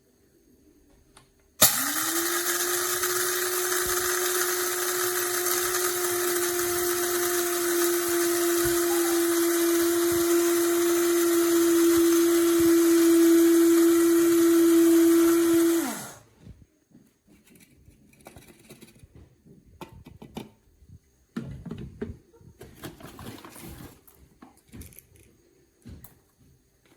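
Electric blade coffee grinder (300 W, stainless steel blades) switched on about a second and a half in, spinning up at once to a steady high motor whine, running for about fourteen seconds, then winding down and stopping. Faint knocks and handling sounds follow.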